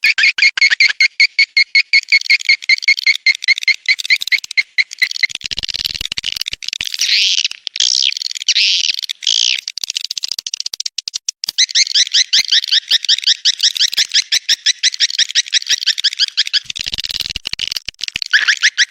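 Swiftlets twittering in dense, rapid chittering trills of fast repeated chirps, changing to smoother calls for a few seconds around the middle. It is a 'birahi' (courtship) swiftlet call track of the kind played to lure swiftlets into nesting houses.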